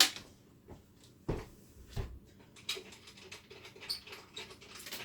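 Vintage Paradigm two-way speaker's particle-board cabinet being handled, with two dull knocks of the cabinet about a second in and scattered light clicks of something loose rattling inside it. The rattle is from loose objects in the cabinet, which the owner takes for toys someone put in there.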